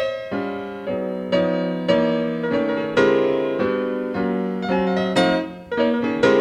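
Acoustic jazz piano playing alone, a run of chords struck about once or twice a second and left to ring and fade, recorded off an FM broadcast onto cassette tape.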